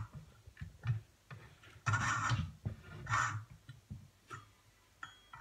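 Hand fretsaw blade rasping back and forth through a small block of wood in short, uneven strokes, the two loudest about two and three seconds in.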